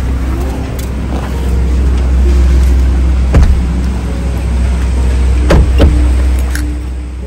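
A steady low rumble, the car's idle and handling noise on the microphone, as a person climbs out of a car, with sharp knocks of the car door about three and a half seconds in and twice more about two seconds later. Faint music plays underneath.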